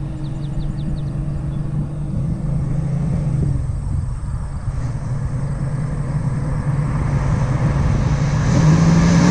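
1970 Dodge Challenger R/T's 440 Magnum V8 running steadily. It grows gradually louder and rises a little in pitch near the end.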